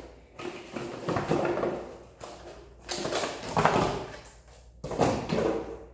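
Packaging being handled while parts are taken out of a box: three stretches of rustling and scraping.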